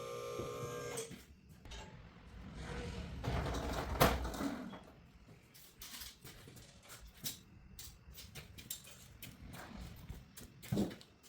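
Shop work sounds: scattered knocks, clicks and clanks of tools and metal parts being handled, with a loud bang about four seconds in and another near the end. A steady electrical hum cuts off about a second in.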